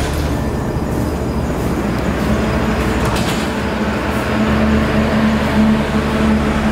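Steady low rumble of machinery with a constant hum; the humming tone grows louder a little past halfway through.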